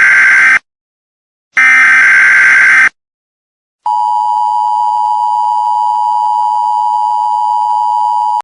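Emergency Alert System end-of-message data bursts: two harsh, screechy digital chirps of about a second and a quarter each, with a short gap between them, ending about three seconds in. About a second later a steady electronic alert tone starts and holds until it cuts off at the end.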